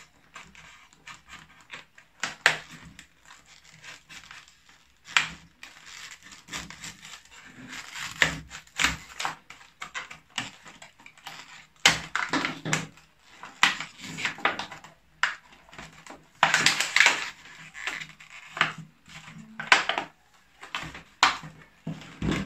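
A knife cutting and prying at a stiff clear plastic clamshell package: irregular scratching, clicking and crackling of the hard plastic. Near the end the plastic is pulled apart by hand.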